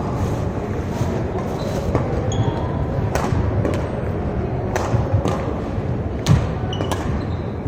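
Doubles badminton rally: sharp racket-on-shuttlecock hits about once a second, with short shoe squeaks on the hardwood court and a heavier thump about six seconds in, over the steady din of a large gym.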